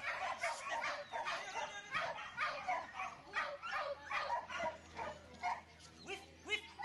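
Border collie barking over and over while running, a steady string of short barks about two to three a second.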